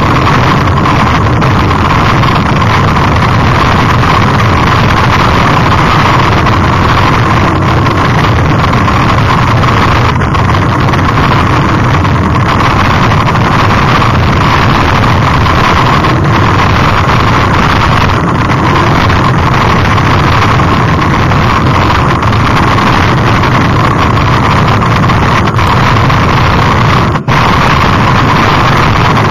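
Steady, loud rushing noise of a mountain bike descending a dirt forest track: wind buffeting the microphone over the rumble of tyres on the loose surface. The noise drops out briefly once, about two seconds before the end.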